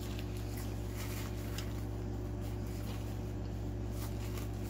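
Steady low electrical hum with a few faint tones above it. Faint scattered clicks and small rustles, with a soft rustle of a paper napkin wiping fingers.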